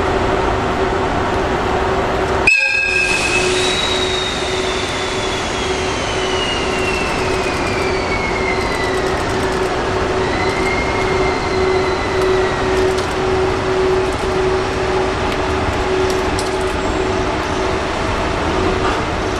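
A train running past close by, with a long wheel squeal that slides down in pitch over several seconds, briefly rises and fades, over a steady hum and wheel noise.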